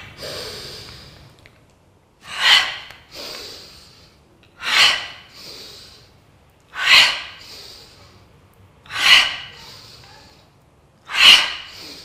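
A woman's forceful breaths out through the mouth, five short sharp blasts about two seconds apart, with softer breathing between. This is Pilates exertion breathing: the out-breath drives each lift of the legs and arm in a sideline teaser.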